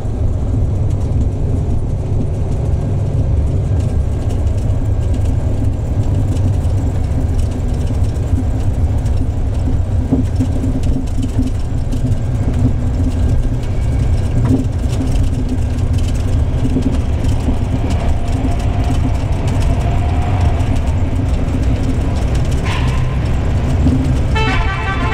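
Engine and modified exhaust of a PO Haryanto bus running with a deep, steady rumble. A short, rapidly pulsing horn sounds about a second before the end.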